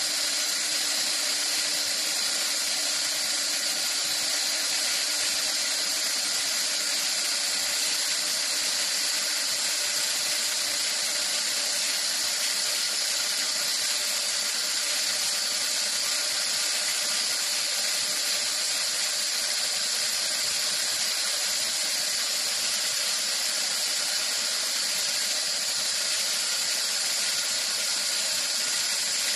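Wood CNC lathe running: a steady, even hiss with faint high tones, unchanging throughout.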